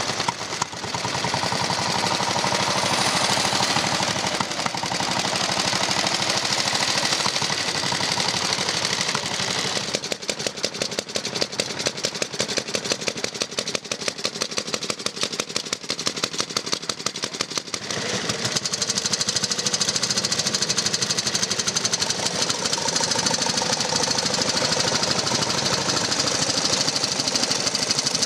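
Veteran motorcycle engines from around 1910 running, each a rapid, even firing beat. The sound changes sharply twice, about 10 and 18 seconds in, as one engine gives way to another. The middle stretch is quieter, with the separate firing pulses standing out more clearly.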